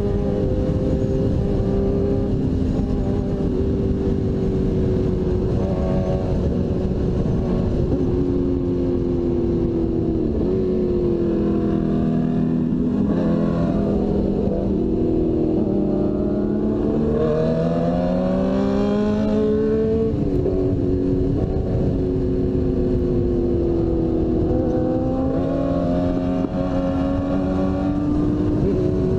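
2002 Suzuki GSX-R1000's inline-four engine running at speed, heard from on board with heavy wind noise. Its pitch holds steady at first, then falls and climbs several times from about ten seconds in, drops suddenly about twenty seconds in, and settles steady again.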